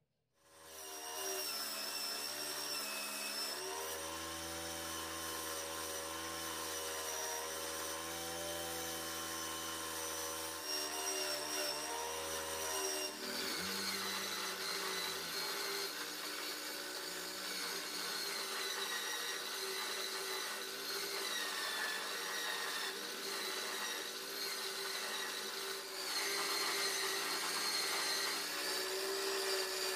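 Electric drill motor driving a homemade wood lathe, running steadily with a whine as it spins a wooden spindle; its pitch shifts about 13 seconds in. Sandpaper rubs against the turning wood in the later part.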